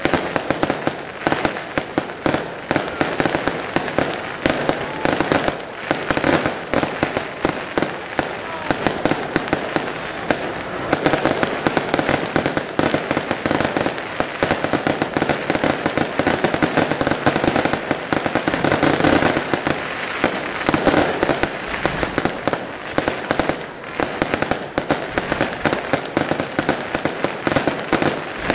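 Aerial fireworks display: a dense, continuous barrage of shell bursts and bangs, many sharp reports a second with no pause.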